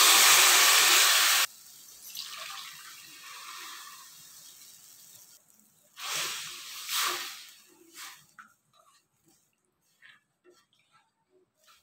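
Water poured into a hot stainless steel kadhai of ghee-fried onions and spices, sizzling and hissing loudly, then cutting off suddenly about a second and a half in as the pour ends; a quieter hiss follows. A wooden spatula then stirs the watery mixture, with two louder scrapes around six and seven seconds in and faint light clicks after.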